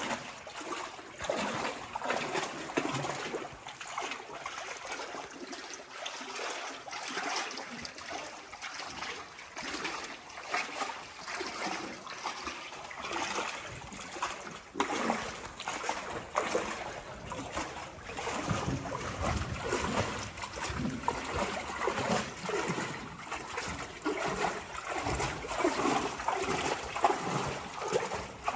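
Cave river water trickling and splashing in small irregular splashes and drips around inner tubes floating through a cave.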